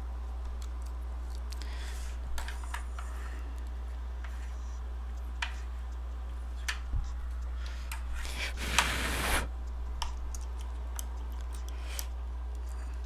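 Small tools and iPhone parts handled on a repair bench: scattered light clicks and taps, with a short rustling burst about nine seconds in, over a steady low hum.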